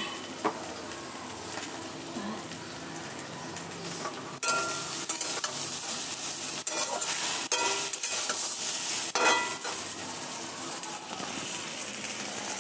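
Food frying in hot oil in a pan, sizzling steadily, with a spatula stirring and knocking against the pan now and then. The sizzle turns suddenly louder a little over four seconds in.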